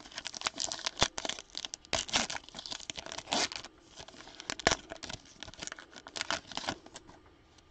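A trading-card pack wrapper being torn open by hand, a run of uneven crackling rips lasting several seconds.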